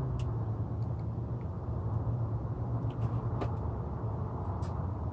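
A vehicle engine running steadily with a low, even hum, with a few faint clicks and taps from the work now and then.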